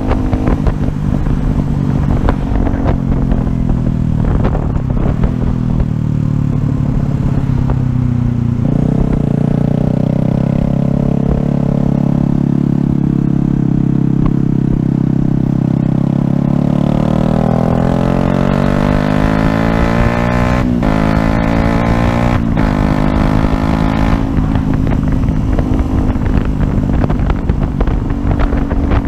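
Yamaha YZF-R125's single-cylinder four-stroke engine, heard from the bike over wind and road rumble: the revs fall as it slows, hold steady for several seconds, then climb again through the gears with two short breaks at the upshifts.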